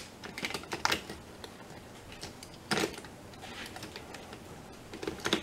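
Hot Wheels die-cast toy cars clicking and clattering against an orange plastic track as they are set into the starting gate. A handful of sharp clicks come at irregular intervals, the loudest about three seconds in.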